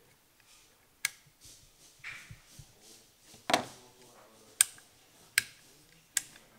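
Handling noise from airsoft rifle parts: five sharp clicks and knocks spread over a few seconds, with faint scuffing between, as the lower receiver and gearbox are picked up and handled.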